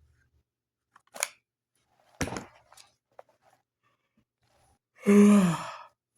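A couple of short, crisp paper-like rustles and a sharp click, typical of tarot cards being handled. About five seconds in comes a loud voiced sigh or hum that falls in pitch.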